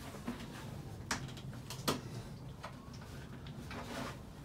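A few faint clicks and taps of plastic parts being handled as the airbox side cover of a KTM 500 EXC dirt bike is worked off by hand, with two sharper clicks about one and two seconds in.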